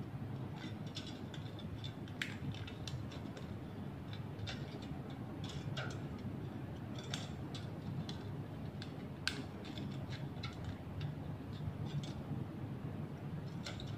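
Thin cut strips of a used tin can being bent and folded by hand, giving scattered, irregular metallic clicks and crinkles over a steady low hum.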